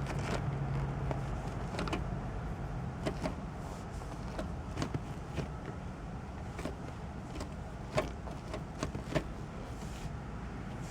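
Mazda Miata gear lever being worked through the gears by its new Momo shift knob, giving scattered light clicks and clunks over a low steady hum.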